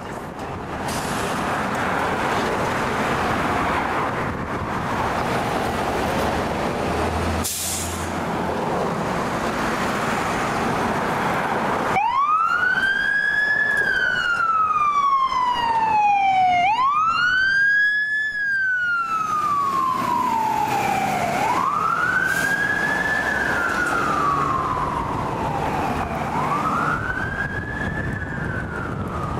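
A 2021 E-One fire engine's diesel engine running as the truck pulls out, with a brief hiss about seven seconds in. About twelve seconds in, its siren starts wailing, each sweep rising quickly and falling slowly, about four and a half seconds apiece.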